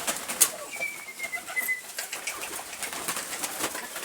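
Pigeons cooing around a feeding spot, with scattered sharp taps and clicks; the loudest comes about half a second in. A faint thin high whistle, slightly falling, lasts about a second.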